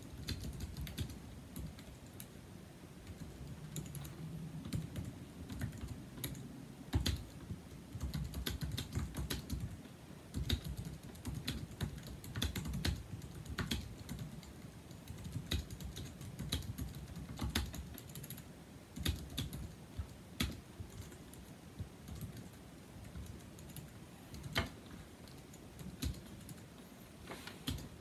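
Continuous typing on a 2007 Apple Aluminum wired keyboard with numeric keypad (A1243), its low-profile scissor-switch keys making a fast, irregular run of clicks, with a few louder keystrokes here and there.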